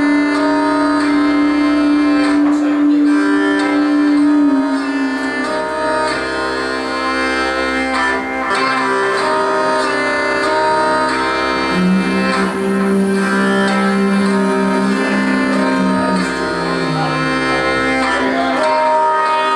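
Hurdy-gurdy playing, its steady drone strings sounding under a shifting melody. A lower held note comes in about twelve seconds in and steps down a few seconds later.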